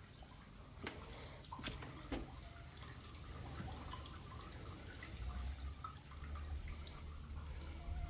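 Water dripping into a shallow pool in a rock grotto: scattered faint plinks, with a few sharper drops in the first couple of seconds. A low rumble grows from about halfway through.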